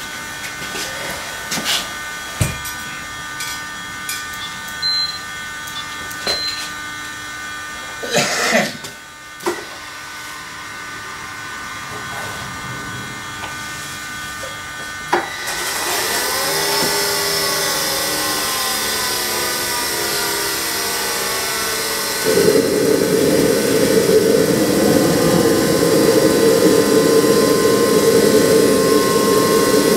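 JetCat P100 model jet turbine in a scale Boeing 777's engine nacelle going through a ground start. After a few clicks and knocks, the turbine begins spinning up about halfway through with a whine that rises in pitch. About three-quarters through it jumps to a loud, steady jet rush as it runs under its own power.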